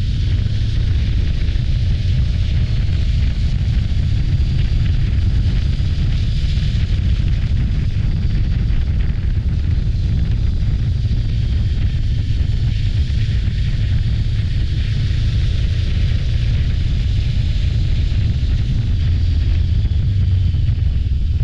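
Steady heavy wind rumble buffeting the microphone of a moving motorcycle, the Voge DS525X riding along at speed, with the motorcycle's running mixed in underneath.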